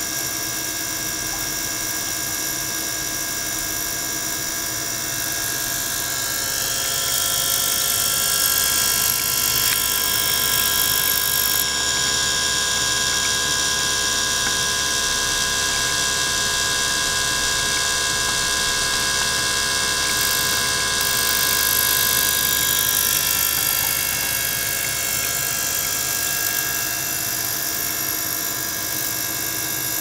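Small circulation pump running steadily, pushing water and air bubbles through a tank: a steady whine of many tones. A hiss over it grows louder after about a quarter of the way through and eases off again near three-quarters.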